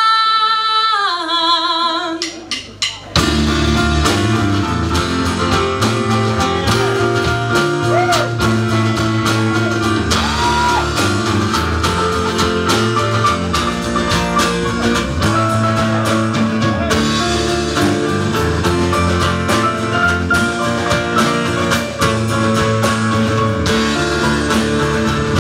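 Live indie rock band: a woman's held sung note ends, a few sharp hits follow, and about three seconds in the full band comes in with drum kit, electric bass and acoustic guitar, a woman singing over it.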